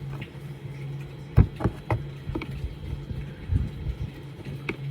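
Flathead screwdriver and hands working on a Henry vacuum cleaner's parts, prying out small metal notches: a series of sharp clicks and knocks, the loudest about a second and a half in, over a steady low hum.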